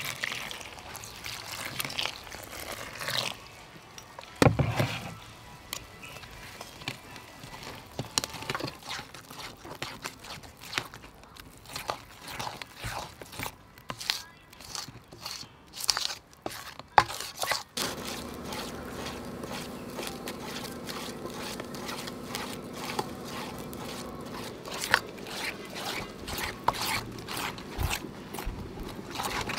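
Metal spoon stirring flour-and-water batter in an aluminium bowl: irregular scraping and sharp clinks of the spoon against the bowl. A steady low hum comes in about halfway through.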